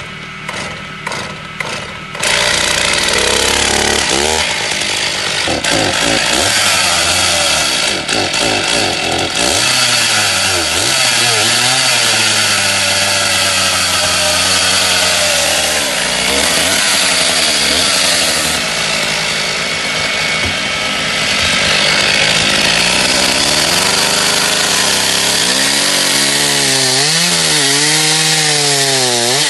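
Stihl two-stroke chainsaw cold-started: a few quick sharp sounds in the first two seconds as the starter is pulled, then the engine catches and runs loudly, its pitch rising and falling, with quick revs up and down near the end.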